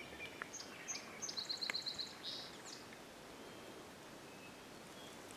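Small songbirds calling: a few short high chirps, then a quick trill of about seven notes about a second and a half in, and a last call near three seconds. After that only a faint steady outdoor hush.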